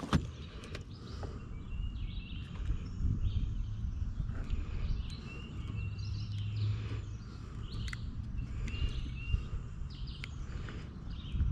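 Birds chirping in short, scattered calls over a steady low outdoor noise, with a few faint clicks.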